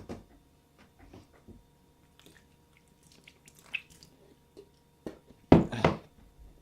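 Faint wet chewing and small mouth clicks of a man eating a raw lemon, with one short, loud noise from his mouth and throat about five and a half seconds in.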